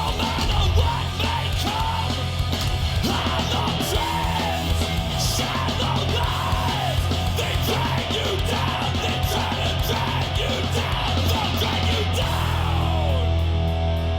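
Heavy metal music with a yelled vocal line.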